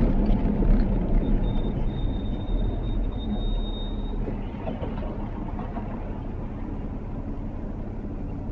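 Car slowing to a stop, its road and engine noise dying away over the first few seconds, with a thin high brake squeal for about three seconds as it comes to rest; then the engine idles steadily while stopped.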